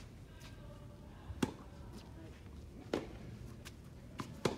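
Tennis rally on a hard court: sharp pops of racket strings striking the ball and the ball bouncing, about one every second and a half, the loudest about a second and a half in, with fainter pops between.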